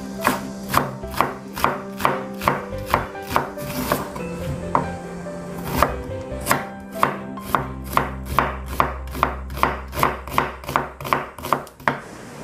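Kitchen knife chopping green onion and then thinly slicing an onion on a bamboo cutting board: a steady run of sharp knife strikes against the board, about two to three a second, with a short pause midway and the strikes coming quicker in the second half.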